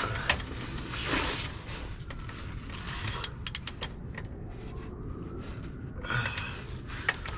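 A wrench working at the oil drain plug on a Duramax truck's oil pan, making sparse metal clicks with a quick run of them about three seconds in. Heavy breaths from the effort come about a second in and again near the end.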